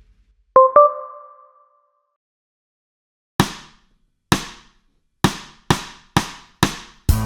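Two brief ringing tones, then a count-in of six sharp clicks: two slow, then four quicker ones, about two a second. Near the end the backing track comes in, with drums and guitar.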